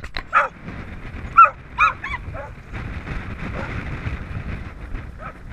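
Dogs barking: about five short, high, yelping barks in the first half. They are followed by a steady rush of water as the dogs splash through the shallow river.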